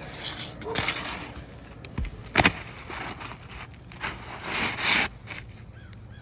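Metal roof snake tool scraping against asphalt shingles in bursts, with two sharp knocks close together about two seconds in, the second one louder.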